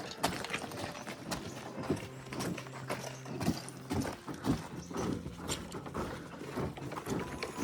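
Background music with a horse-trotting clip-clop rhythm of hollow knocks over held notes.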